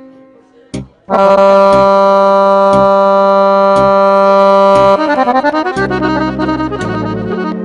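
Instrumental passage of a Serbian folk song. An accordion holds a loud sustained chord for about four seconds over a steady beat, then plays a quick descending run into lower bass notes.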